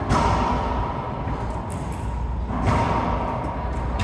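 Two loud hits in an enclosed racquetball court, about two and a half seconds apart, each ringing on briefly in the court's echo, over a steady low hum.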